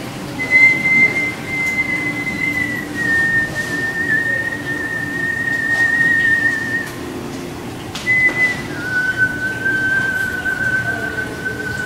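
A man whistling long, high, pure held notes through pursed lips. The first note steps slightly lower and wavers before breaking off about seven seconds in. After a short break and a brief higher note, a lower note is held steadily.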